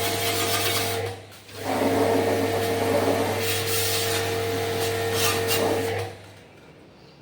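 An electric motor-driven machine running with a steady hum and rushing air. It cuts out about a second in, starts again half a second later, and is switched off about six seconds in.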